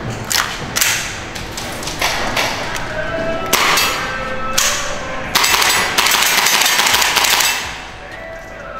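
PTS Masada gas blowback airsoft rifle firing at targets: spaced single shots over the first five seconds, then a rapid string of shots that stops about seven and a half seconds in.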